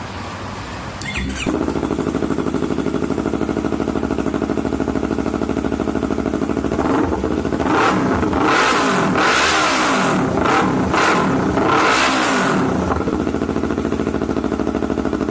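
Motorcycle engine and exhaust running, getting louder about a second and a half in, then blipped through several quick revs in the middle before settling back to idle.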